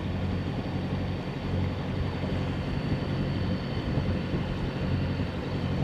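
Sailing yacht's inboard diesel engine running steadily at low revs while the boat manoeuvres slowly under power, a continuous low hum.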